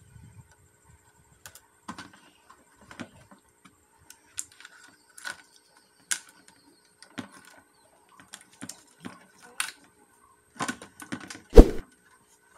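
Irregular small clicks and taps of plastic parts and cable connectors being handled inside an electronic scale's plastic housing, with a louder knock near the end.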